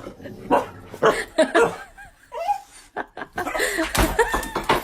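A person laughing in repeated short bursts.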